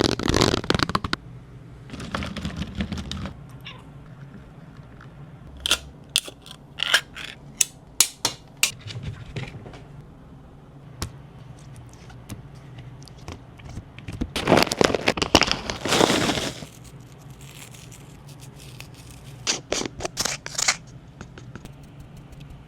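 Cat food being handled and served: bursts of rustling and scraping, with runs of sharp clicks and taps.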